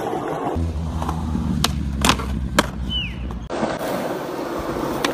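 Skateboard wheels rolling over street paving with a low, steady rumble, broken by three sharp clacks of the board. The rumble cuts off suddenly about three and a half seconds in, and lighter rolling with a couple of clacks follows near the end.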